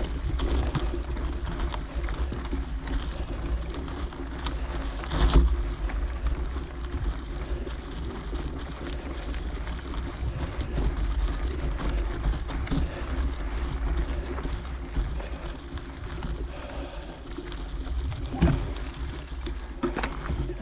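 Mountain bike ridden along a dirt trail, heard through wind rumbling on the action camera's microphone, with a sharp knock about five seconds in and another near the end.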